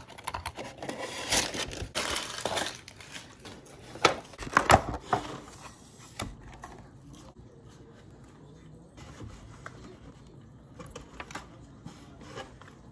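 Plastic takeout containers and lids being handled: crinkling, rustling and sharp clicks of thin plastic, loudest about four to five seconds in, then quieter with only scattered small clicks.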